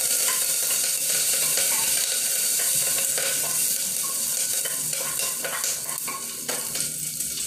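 Tempering for sambar: curry leaves, dry red chillies, mustard and cumin seeds sizzling in hot oil in a pressure cooker, with scattered pops and a spatula stirring and scraping the metal base. The sizzle eases a little near the end.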